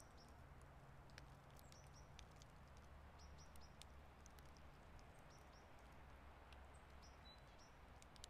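Near silence: faint outdoor ambience with a low steady hum, small bird chirps scattered throughout and a few light ticks.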